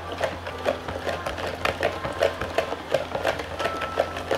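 A spoon stirring sorrel drink in a plastic pitcher, knocking against the sides about three to four times a second as the sugar is stirred in to dissolve.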